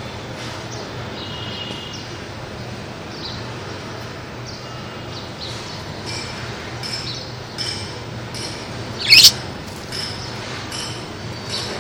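Pet lovebirds chirping in short, scattered high calls, with one loud, sharp squawk about nine seconds in, over a steady low hum.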